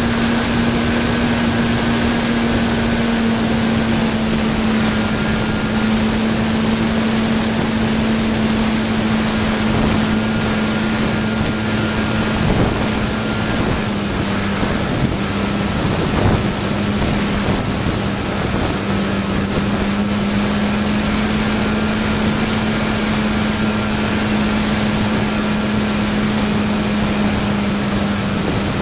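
Park-flyer RC plane's motor and propeller running at a steady pitch, heard from a camera strapped in the plane's cockpit, with rushing airflow noise over the microphone. The pitch drops a little about halfway through and comes back up a few seconds later.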